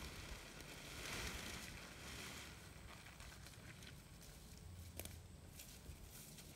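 Faint rustling of a plastic tarp being pulled out over grass, strongest in the first couple of seconds, with one sharp click about five seconds in.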